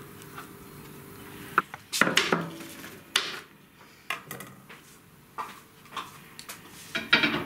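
An L-shaped kitchen knife cutting cheese on a plastic chopping board: irregular sharp clicks and knocks, some in quick clusters, with quieter gaps between.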